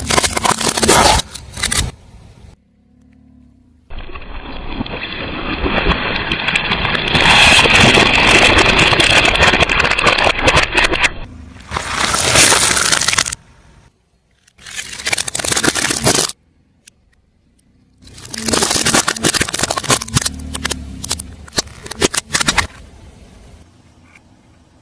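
A car tyre rolling over and crushing objects, in a run of separate crunching, crackling and scraping stretches, each breaking off abruptly. The longest lasts about seven seconds, from about four seconds in.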